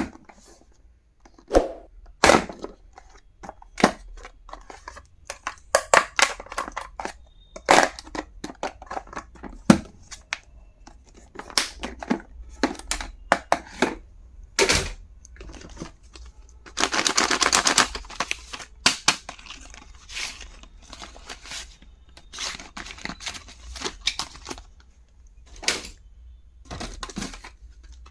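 Small plastic stationery items and packaging being handled: scattered sharp clicks and taps, with a longer stretch of tearing, crinkling packaging about seventeen seconds in.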